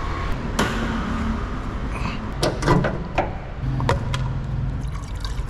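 A string of clicks and clunks as the Honda City's door and bonnet are worked and the bonnet is opened, over a low steady rumble.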